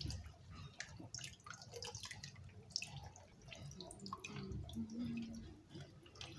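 Water splashing and dripping in a plastic basin as raw beef tripe is washed by hand, lifted out and let drip back into the water, with irregular small splashes and drips throughout.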